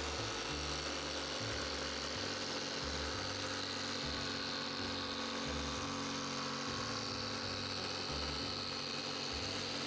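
Electric jigsaw motor running steadily, mounted under a homemade saw table, giving an even hum with a high whine.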